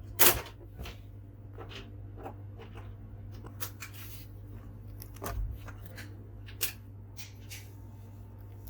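Scattered clicks and taps from handling a laptop, the loudest a sharp click about a quarter second in, over a steady low electrical hum.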